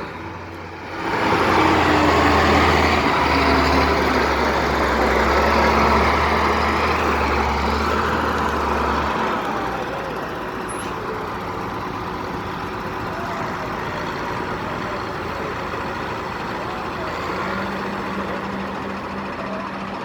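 Heavy diesel engine of a motor grader running as the machine drives past, loudest in the first half and then easing off to a lower steady rumble.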